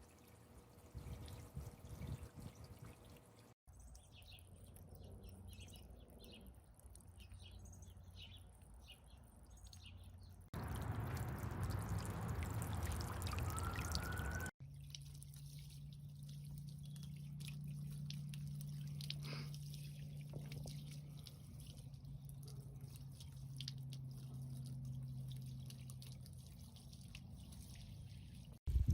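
Water from a small solar-powered fountain pump splashing and trickling into a bird bath, over several short clips that change abruptly. A steady low hum runs under the second half.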